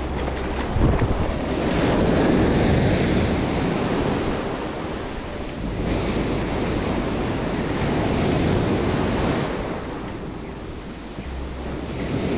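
Ocean surf breaking and washing up around the feet, swelling twice as waves come in, with wind rumbling on the microphone.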